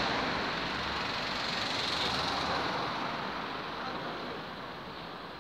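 Street traffic noise: a vehicle passing along the road, fading away as it goes.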